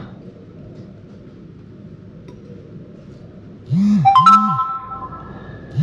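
Low background hum, then near the end a loud electronic jingle: two short swooping low notes, then a rising three-note chime held for about a second. It starts again right at the end.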